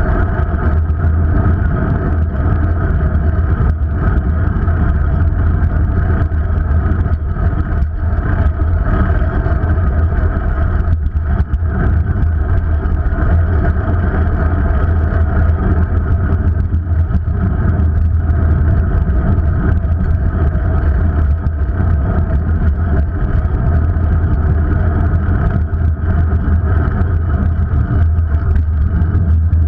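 Steady low rumble of wind and road vibration on a bicycle-mounted GoPro action camera riding along a street, mixed with car traffic alongside.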